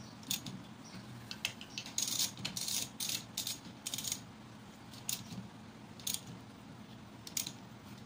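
Ratchet wrench clicking in short runs as the cylinder head bolts of a Honda GX110 engine are tightened.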